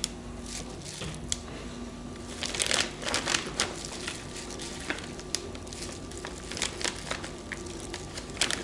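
Plastic vacuum-seal bag and disposable plastic gloves crinkling and rustling as handfuls of marinated meat and onions are packed into the bag, in irregular bursts of rustles, busiest about three seconds in.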